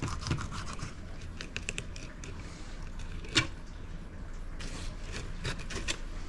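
Filleting knife scraping along a fish's bones: a run of short scratches, with one sharper click about three and a half seconds in.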